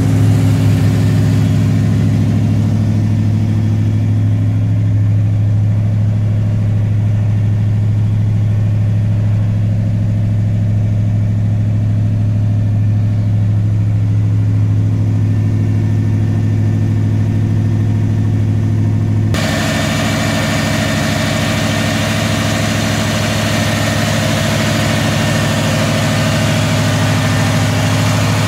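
Ford Racing crate engine in a 1985 Ford F-150 idling steadily with an even low hum. It sounds muffled at first, as heard from the cab, then turns suddenly sharper and clearer about two-thirds of the way through, as heard at the open engine bay.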